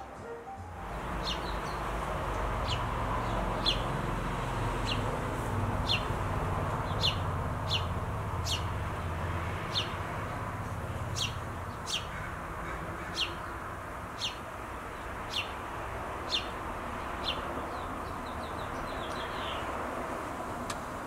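House sparrows chirping: single short, high chirps repeated about once a second over a steady low background rumble.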